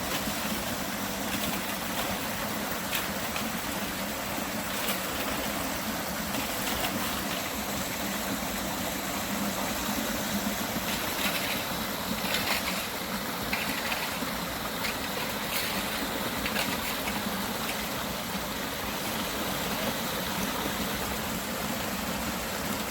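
Rushing stream water, a steady noise with no let-up.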